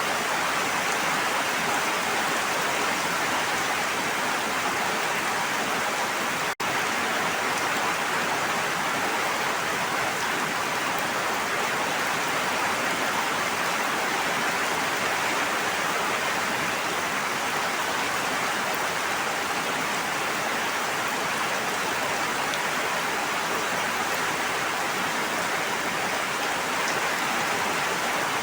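Continuous water noise, a steady even hiss like heavy rain or rushing water, that breaks off for an instant about six and a half seconds in.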